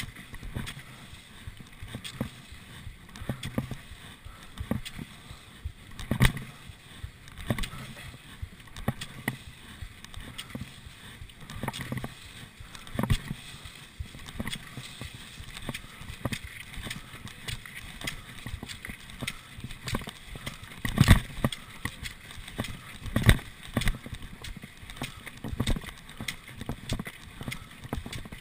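Classic cross-country skiing in set tracks: skis sliding and kicking on groomed snow, with pole plants from Swix poles knocking in an uneven rhythm about once a second and a few louder knocks.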